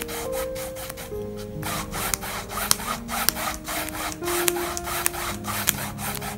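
Flat paintbrush scrubbing acrylic paint onto stretched canvas in quick back-and-forth strokes, several rubs a second with a short pause about a second and a half in. Soft background music plays underneath.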